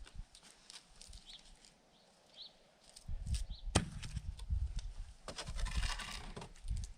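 A log being split lengthwise with a froe. There is a sharp crack nearly four seconds in, then about a second of wood tearing and crackling as the halves pull apart.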